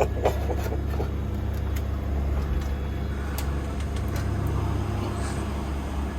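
A steady low machine hum with a few light clicks and knocks.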